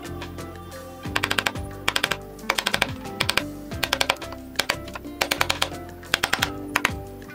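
Background music with a steady beat and bursts of rapid clicking.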